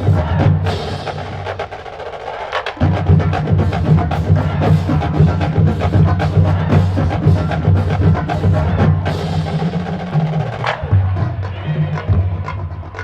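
Marching band drumline playing a fast rhythm, with many sharp stick clicks over low drum tones. The low part drops out briefly about two seconds in.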